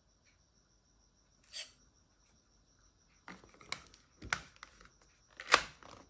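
Plastic battery cover of a KT-208 universal air conditioner remote being handled and slid back onto the remote: a brief scrape, then a series of plastic clicks and taps as it snaps shut, the loudest about five and a half seconds in. A faint steady high-pitched whine sits underneath.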